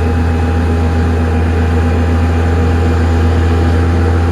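Steady low drone on board a moving parking-lot tram, with a few fainter steady tones above it.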